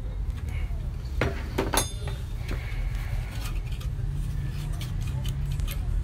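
Sharp metal clicks and clinks from a socket wrench tightening the nut that holds the fan on a vacuum-cleaner motor shaft, a tight cluster of them about a second in and lighter ones later, over a steady low hum.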